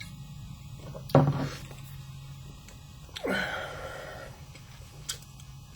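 A man burping twice: a short, loud burp about a second in, then a longer one about three seconds in whose pitch drops sharply as it starts.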